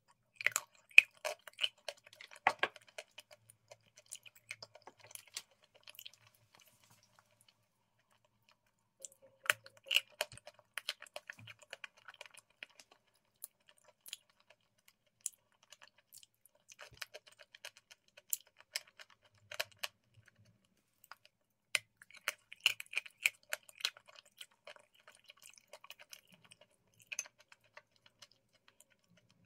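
Close-up mouth sounds of eating a soft foamy food: spells of fine wet crackling and smacking as the foam is taken off the spoon and chewed, coming in four or five bursts with short quiet gaps between.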